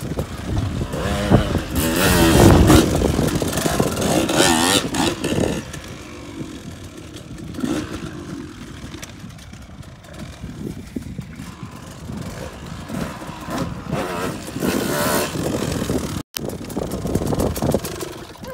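Dirt bike engine revving hard, its pitch rising and falling as the bike climbs a steep slickrock bowl, then running quieter and steadier for the rest of the time. The sound cuts out for a split second near the end.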